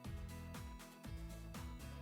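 Background music with a steady beat and a sliding bass line.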